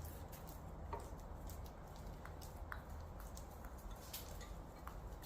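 Faint, scattered light clicks and ticks, a few a second at irregular intervals, over a low steady hum.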